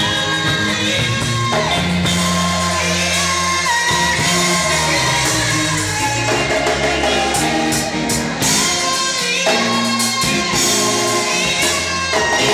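Live gospel band music: singing over a full band with a drum kit, at a steady dance tempo.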